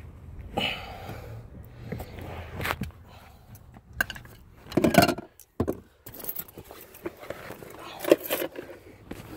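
Hand-work noises from fitting a replacement parking-brake release handle: scattered clicks, scrapes and knocks of tools and metal parts being handled, with a louder clatter about five seconds in.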